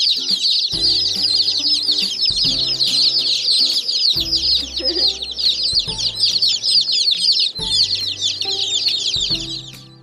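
A brooder full of day-old chicks peeping all at once: a dense, continuous chorus of high, short, downward-sliding cheeps, fading out in the last second.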